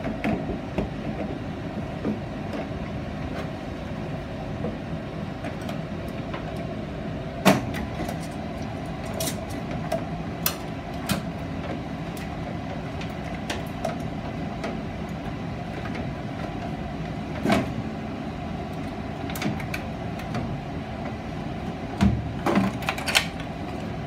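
A few sharp knocks and clatters, with lighter clicks between them, as a gas furnace's collector box is worked loose and pulled off. A steady machine hum runs underneath.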